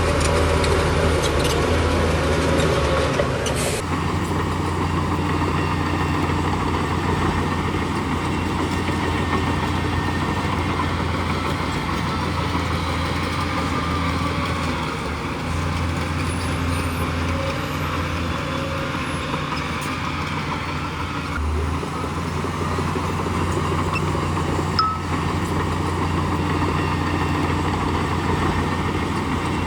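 Heavy diesel engine of earthmoving machinery running steadily with a deep hum, changing abruptly about four seconds in.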